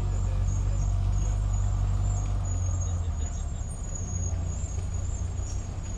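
WWII German light half-track's engine running as it drives past, a deep rumble loudest over the first half and easing off toward the end, with a thin high squeal coming and going on top.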